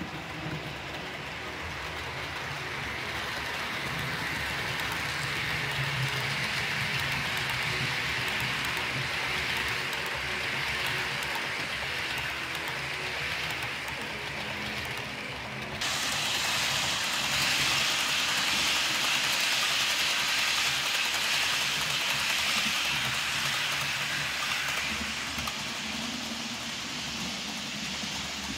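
Model Intercity train running along the layout's track: a steady rushing of wheels on the rails with a faint low motor hum. It swells over the first few seconds, turns suddenly brighter and louder about 16 seconds in, and eases off toward the end.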